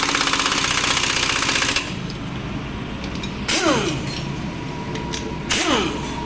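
A power tool rattling fast and evenly for about two seconds, then two short bursts a couple of seconds apart, each falling quickly in pitch as the tool winds down.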